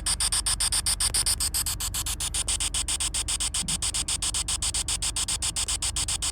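Spirit box sweeping through radio stations: a steady hiss of static chopped into rapid, even pulses, about eight a second.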